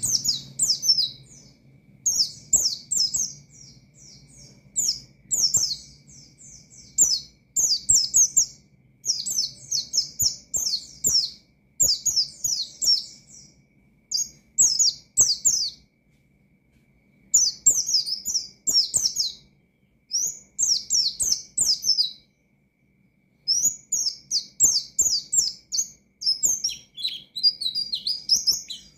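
White-eye (pleci) singing in fast, high chirping phrases about a second long, repeated with short gaps, with two longer pauses midway.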